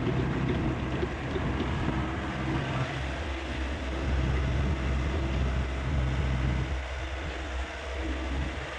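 Diesel engine of a Hyundai 85A excavator running steadily with a low drone, easing off slightly about two-thirds of the way through.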